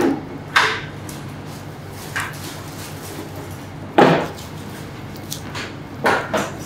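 A few short knocks and clatters over a steady low hum, the sharpest about four seconds in.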